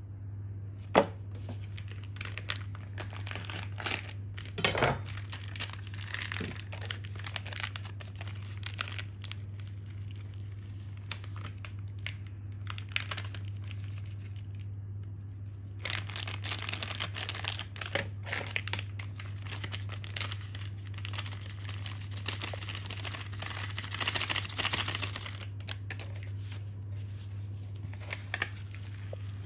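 Crinkling and tearing of a spice-mix packet handled by nitrile-gloved hands, with a sharp click about a second in and a longer, denser run of crinkling in the second half. A steady low hum lies underneath.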